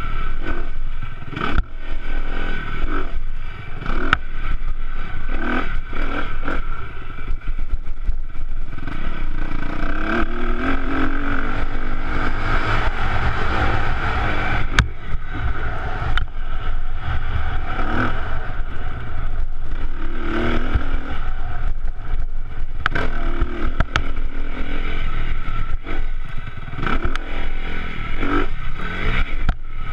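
Honda CRF250R dirt bike's four-stroke single-cylinder engine being ridden hard, revving up and easing off again and again, with frequent knocks and rattles from the bike over the rough track.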